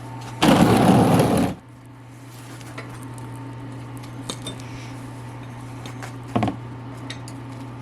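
A loud rushing, rustling noise about a second long near the start, then a few light metallic clicks and a knock from hand tools working on the dirt bike's skid-plate bolts. A steady low hum runs underneath.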